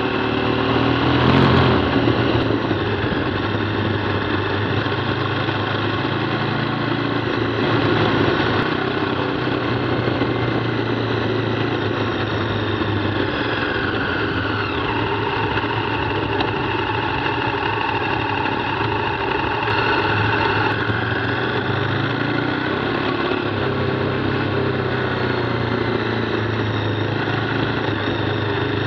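KTM 990 Adventure's V-twin engine running steadily on a gravel road, heard close from the bike with wind and tyre noise; its pitch shifts a few times as the bike slows down.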